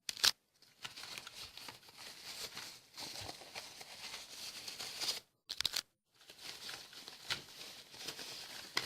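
Plastic packaging crinkling and rustling as a keyboard is unwrapped and handled, with a sharp click just after the start and a few quick knocks a little past halfway.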